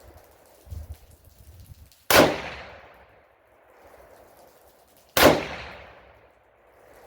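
Hakim semi-automatic rifle firing 8mm Mauser ball rounds: two shots about three seconds apart, each followed by a long echo fading out. A low rumble comes shortly before the first shot.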